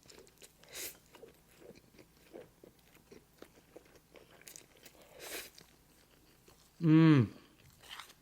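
A person chewing a mouthful of Cajun shrimp jambalaya pasta, with soft wet mouth smacks and clicks. Near the end comes a short, loud hummed "mmm" of enjoyment.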